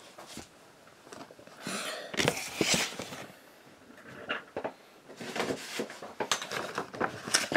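Cardboard shipping boxes being handled: irregular light knocks, scrapes and rustles of cardboard and packing tape, in two busier spells separated by a quieter stretch.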